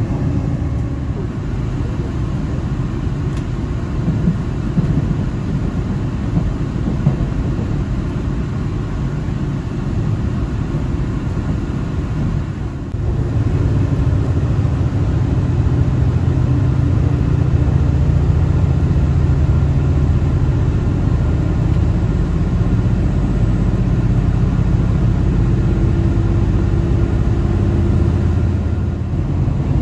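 Steady low rumble of a diesel limited express train heard from inside the passenger car, growing louder and fuller about halfway through.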